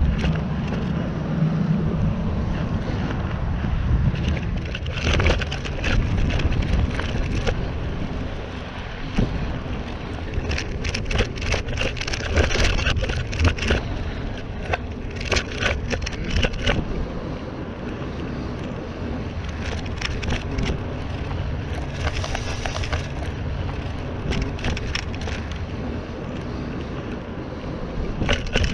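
Mountain bike riding along a dirt trail: a steady rumble of wind on the microphone and tyre noise, with repeated bursts of crackling and rattling.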